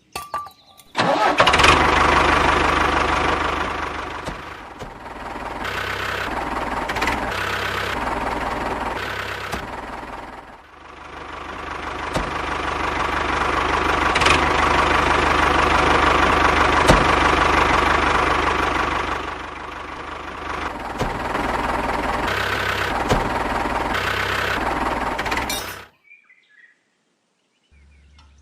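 Small motor of a home-built miniature tractor drilling rig running. It starts abruptly, rises and sags in speed and loudness several times as if under changing load, and cuts off suddenly near the end.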